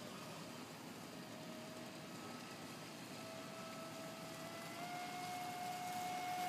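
Traxxas Spartan radio-controlled speedboat's electric motor running out on the water, a steady whine that steps up in pitch twice and grows louder near the end.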